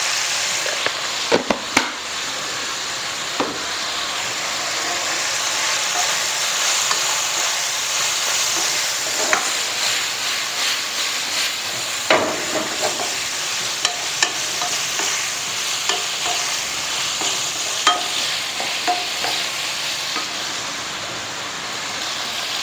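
Chicken and vegetables sizzling steadily in a hot nonstick wok while a wooden spatula stirs and tosses them, with scattered knocks and scrapes of the spatula against the pan.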